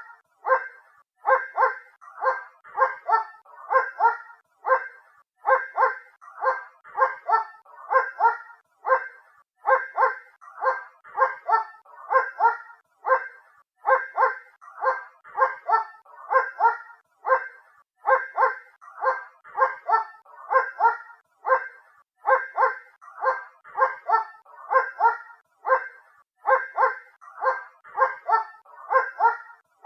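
A dog barking from a distance, over and over in quick runs of two to four barks with short gaps between runs; the barks sound thin, with no deep tones.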